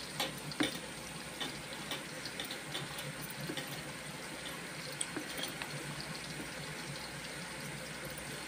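A hand squeezing and kneading boiled horse gram in a plastic bowl of its cooking liquid: faint wet squelching and small splashes, with a few soft clicks.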